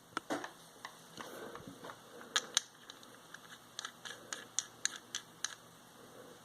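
Small parts of a vape atomizer being handled during a rebuild: a series of short, sharp clicks with light scraping between them. The two loudest clicks fall about two and a half seconds in, and a quicker run of clicks follows near the end.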